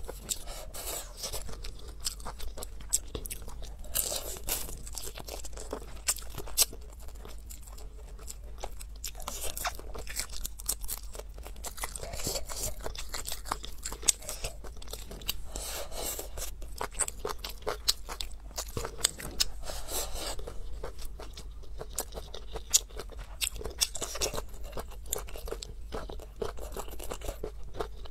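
A person chewing and crunching food, with a dense run of short crackling clicks from the mouth and food.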